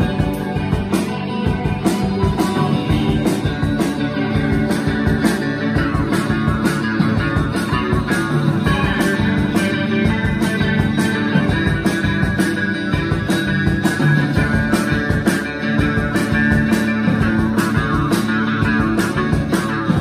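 Rock band playing live: guitar over bass and drums, with a steady beat.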